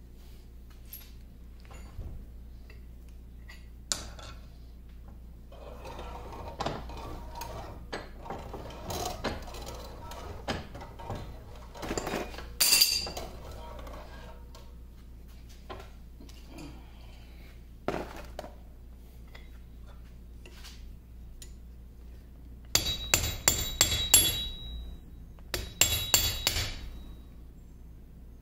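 Handling and scraping of cast-iron lathe compound parts in a vise, then two quick runs of about five or six sharp, ringing hammer taps on a steel punch. The taps are an attempt to drive apart a compound slide that is rusted in place.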